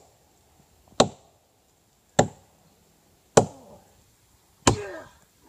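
Hatchet blade chopping into a standing tree trunk: four sharp, evenly paced strikes, a little over a second apart.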